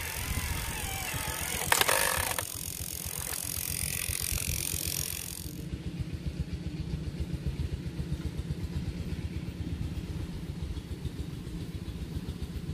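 Radio-controlled 6x6 timber truck driving, its motor and drivetrain running with a fast low rattle. A sharp knock comes about two seconds in, and a loud hiss cuts off suddenly about five and a half seconds in.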